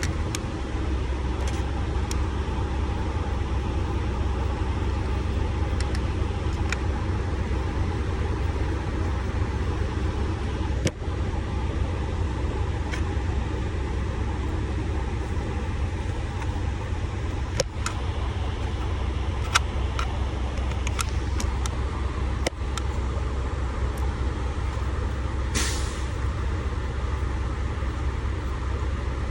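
Truck engine idling with a steady low rumble, with scattered small clicks and taps from hand work on the steering column and a brief hiss about three-quarters of the way through.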